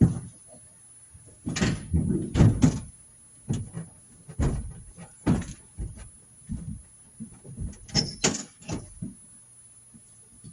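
Irregular knocks, clunks and clatter, about a dozen over several seconds, the loudest at the start and a cluster about two seconds in: tools and equipment being handled for a roadside tire change.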